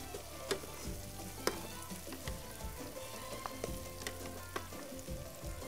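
Onion, garlic and tomato paste with spices sizzling in a frying pan, with a few sharp taps and scrapes of a spoon stirring against the pan.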